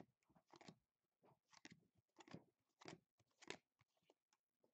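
Faint, quick swishes of football trading cards being slid off a pack stack one at a time, six or so in a row at about one every half second to second.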